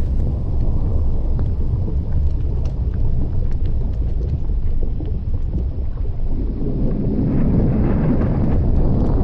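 Deep, steady rumble of a volcanic eruption with faint scattered crackles, swelling louder and fuller about six seconds in.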